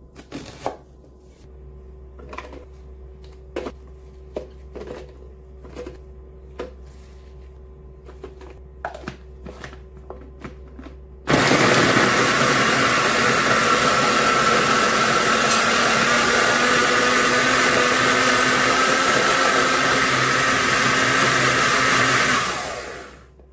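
A kitchen knife slices through a red onion onto a wooden cutting board, with a sharp tap about once a second. About eleven seconds in, a small electric food processor starts abruptly and runs steadily and loudly, mincing onion, garlic and ginger, then winds down near the end.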